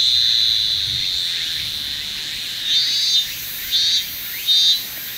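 Insects shrilling in the background: a steady high-pitched drone that breaks into three short pulsing phrases in the second half.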